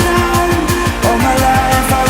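Background electronic music with a fast, even pulse of low drum hits under held synth notes.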